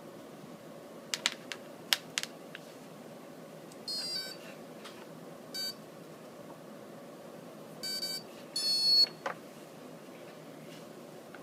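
Brushless outrunner motor beeping, driven by its ZTW 45 A ESC newly flashed with SimonK firmware: the power-up and arming tones. There are a few sharp clicks in the first couple of seconds as the power connector is plugged in, then four short beeps about 4, 5.5, 8 and 8.7 seconds in, the last the loudest.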